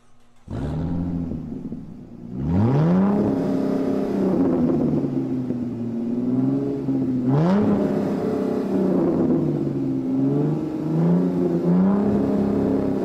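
Supercar engine idling and being revved with sharp throttle blips: two big rising revs, at about two and a half and about seven seconds, then several smaller ones near the end, each falling back to idle.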